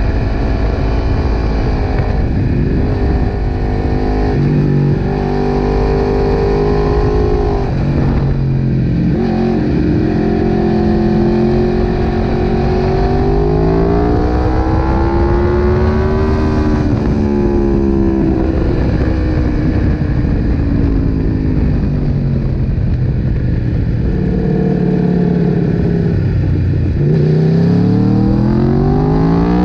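Sport motorcycle engine at full track pace, picked up by a camera on the bike's tail: the revs rise and fall as the rider works the throttle and gears through the corners, then climb steeply over the last few seconds under hard acceleration.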